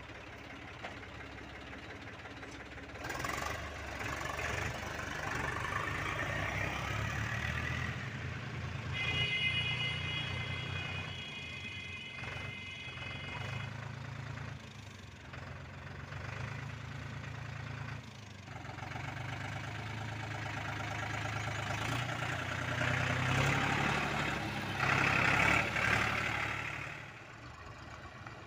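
Diesel tractor engines running as the tractors drive along the road, a steady low engine note that grows louder as they come closer, loudest shortly before the end. A steady high tone sounds for a few seconds around the middle.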